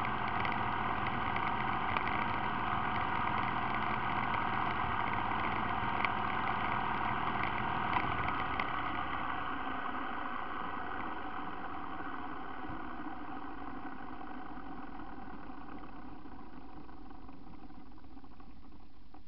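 ATV engine idling steadily, with a few light knocks in the first half; it settles a little quieter about ten seconds in.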